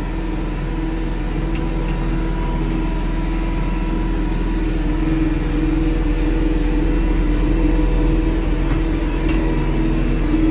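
Kioti NS6010 compact tractor's diesel engine running steadily at raised RPM while working, held up during a regeneration burn of its exhaust particulate filter. A few faint clicks sound over it.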